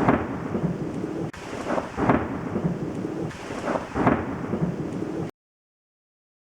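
Thunderstorm: a rumble of thunder over rain, swelling louder about every two seconds, then cutting off abruptly.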